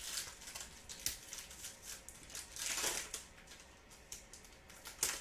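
Trading cards and pack wrapper being handled: crinkling and rustling with a few sharp clicks, and a longer rustle about halfway through.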